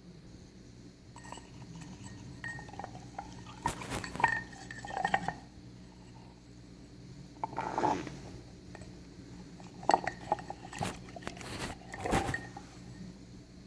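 Scattered clinks and knocks of hard objects being handled, in several short clusters.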